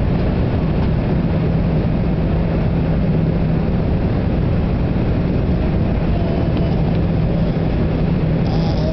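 Steady cabin noise of a jet airliner in flight: an even rush of air with a constant low engine hum. Near the end a baby's high voice briefly starts.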